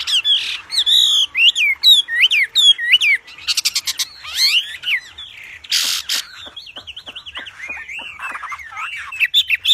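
Wambi songbird singing a loud, fast, varied song of sharp whistled notes that swoop up and down. A quick rattling trill comes about midway, then a rapid string of short down-slurred chirps.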